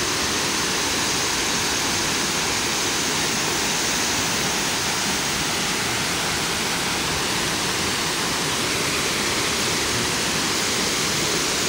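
Waterfall pouring into a pool, a steady, unbroken rush of falling water close by.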